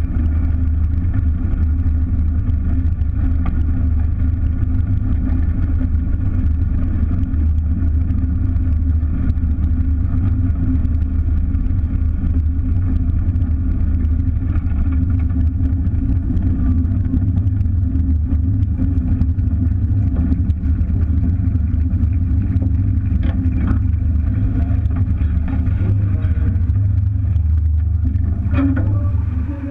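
Lycoming piston engine of a single-engine aerobatic plane running steadily at low power as the plane taxis, a heavy low rumble heard from a wing-mounted camera. There is a brief disturbance in the sound near the end.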